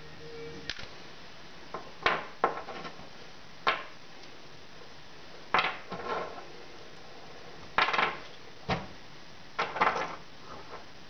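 Metal tools and parts clinking and knocking as they are picked up and set down on a workbench: a dozen or so separate sharp clanks, some in quick pairs, spread out with short gaps between.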